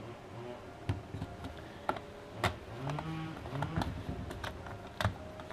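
Scattered clicks and light knocks of a screwdriver and hands working on the plastic housing of a veterinary slit lamp, taking out its Phillips screws; about five sharper clicks stand out.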